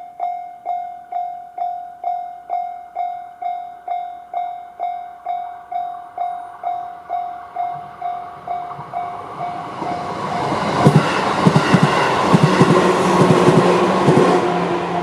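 JR standard electronic level-crossing bell ringing about twice a second. From about ten seconds in, a 211-series electric train passes loudly over the crossing, its wheels clacking over the rail joints, and dies away near the end while the bell keeps ringing.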